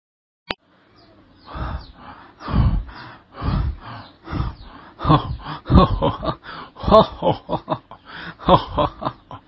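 A man's voice laughing in a long run of bursts, spaced out at first and coming faster after about five seconds, with a single sharp click just before it starts.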